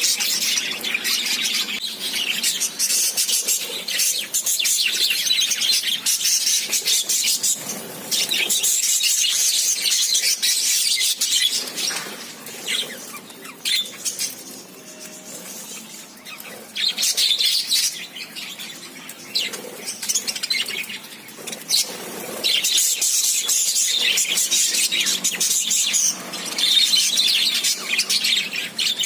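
Small birds chirping and chattering rapidly, many calls overlapping, with a quieter spell about halfway through.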